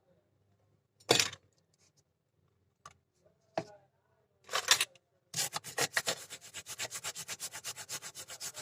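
Scrubbing strokes on a phone's circuit board as it is cleaned: a few separate scrapes, then a fast, even run of strokes, about nine a second, over the last three seconds.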